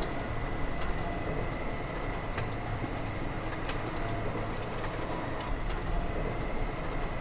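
Steady workshop machinery hum with a thin high whine and a few scattered light clicks.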